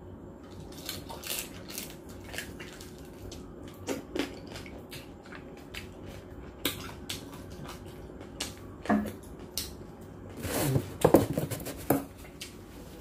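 Close-up eating sounds: crispy roast pig skin (lechon) crunching and crackling as it is chewed, with wet mouth sounds and scattered clicks. A louder run of crunches comes about ten and a half seconds in.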